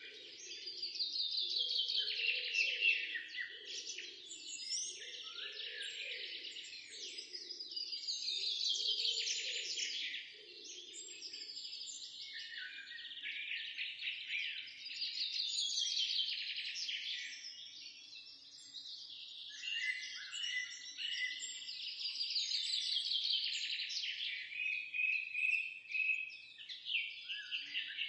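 Recorded birdsong: several songbirds chirping and trilling without a break, with a rapid downward-sliding trill repeating every few seconds.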